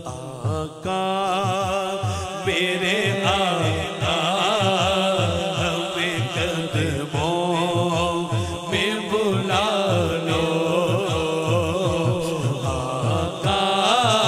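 A man singing a naat, Urdu devotional praise of the Prophet, into a microphone. He draws out long, wavering, ornamented notes with heavy vibrato over a low, regular rhythmic pulse.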